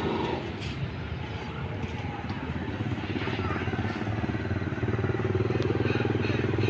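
A small engine running steadily with a low, even pulsing, growing louder over the last couple of seconds.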